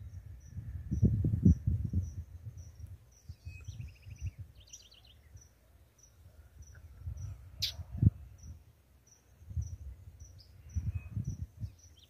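An insect chirps steadily at about two to three pulses a second. About four seconds in, a caged lined seedeater (bigodinho) gives a short buzzy trill. Low rumbles of wind on the microphone come and go, and there is a sharp click near eight seconds.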